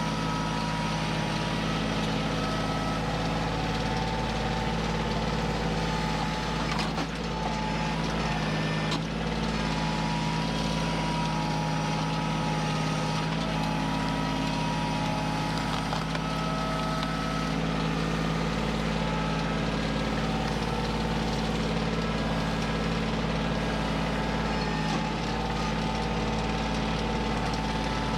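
Kioti CK2610 compact tractor's three-cylinder diesel engine running steadily, with a brief dip twice about seven and nine seconds in.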